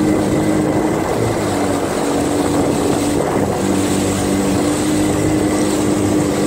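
Jet ski engine running at a steady pitch, with rushing wind and water noise over it.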